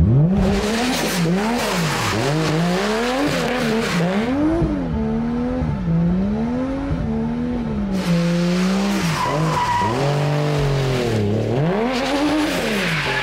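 Toyota JZX100 Mark II drifting: the engine revs swing up and down about once a second as the throttle is worked through the slides. Tyres squeal and hiss in stretches near the start, in the middle and near the end.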